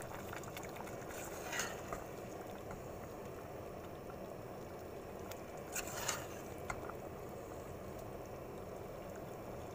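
Pot of noodle soup boiling steadily on the stove, with a few brief clinks of a metal ladle against the stainless steel pot as the noodles are stirred, a cluster of them a little past halfway.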